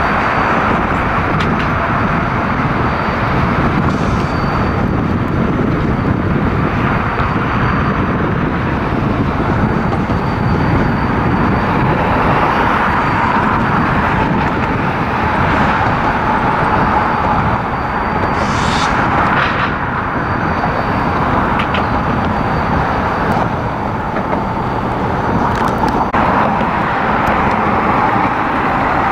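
Steady, loud outdoor vehicle rumble with no distinct events standing out.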